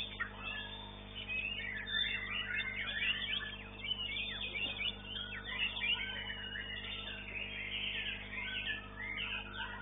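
White-rumped shamas (murai batu) singing at once in competition, a dense run of quick whistles, chirps and trills.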